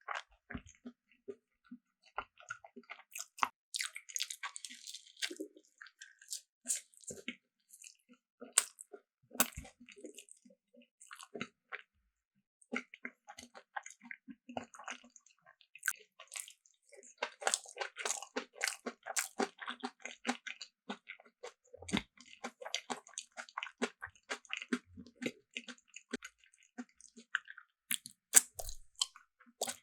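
Close-miked mouth sounds of a person biting and chewing food: a continual run of crisp clicks and wet smacks, thickest about four seconds in and again from about seventeen to twenty-one seconds.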